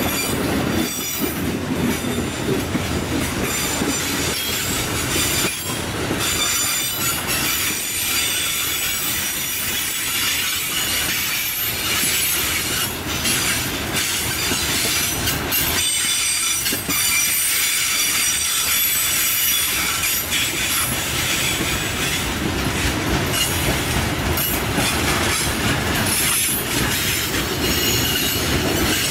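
Freight train of covered hopper cars rolling past with a steady rumble of wheels on rail. High-pitched wheel squeal comes and goes, with scattered sharp clicks.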